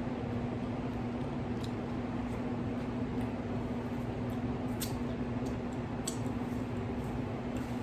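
Close-miked chewing of a fried oyster mushroom snack wrap, with a few sharp mouth clicks about five and six seconds in, over a steady low hum.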